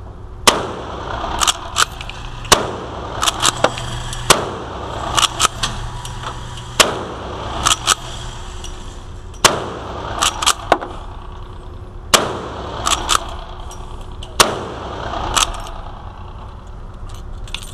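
Rossi Ranch Hand lever-action pistol in .44 Magnum firing a hot, loud load: a shot about every two to three seconds, each ringing off the walls of the indoor range, with smaller sharp clacks between shots.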